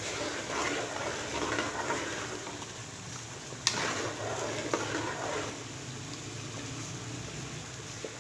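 Thick semolina halwa bubbling and squelching in a metal pot as a metal spoon stirs it, with a sharp clink of the spoon against the pot about halfway through and a lighter one a second later. The stirring sound grows quieter after about five and a half seconds.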